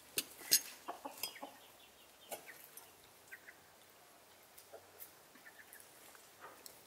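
Chickens clucking intermittently, with a couple of sharp clinks of a glass tea cup on its saucer in the first second.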